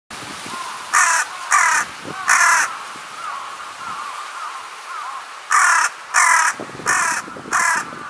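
Juvenile carrion crow giving short, hoarse caws: three in the first few seconds, then a run of four near the end.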